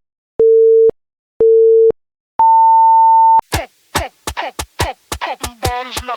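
Electronic start-signal beeps: two short beeps a second apart, then one longer, higher beep of about a second, like a race-start countdown. Electronic dance music then kicks in, with punchy beats and chopped sounds that fall in pitch.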